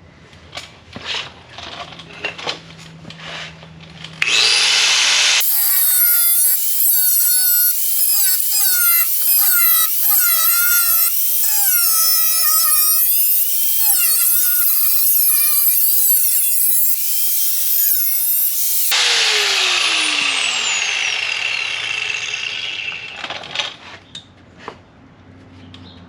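A high-speed rotary cutting wheel cutting through the Range Rover Classic's sheet-steel bulkhead: it starts about four seconds in and runs loud for about fifteen seconds, its pitch wavering as it bites into the metal, then winds down with a falling whine. A few light clicks and knocks of handling come before and after the cut.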